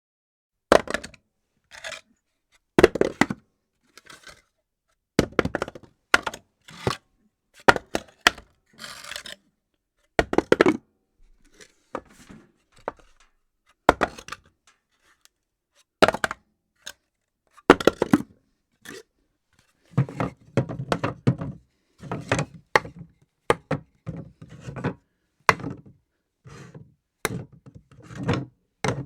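Wooden objects dropped one after another onto a hard floor. Each lands with a sharp knock, and some bounce or clatter briefly before settling.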